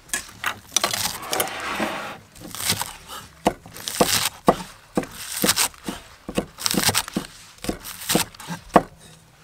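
Cleaver chopping green onions on a round wooden chopping block: irregular knocks of the blade on the wood, with crisp crunching as it cuts through the stalks.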